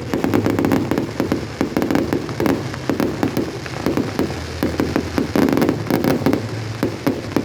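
Fireworks display going off: a dense, continuous run of bangs and crackles.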